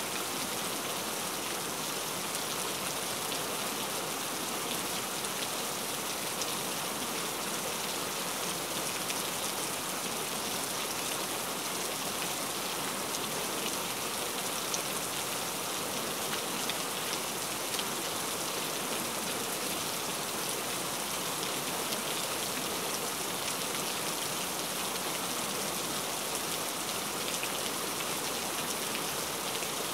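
Steady rain: an even hiss with a fine patter of drops, unchanging in level.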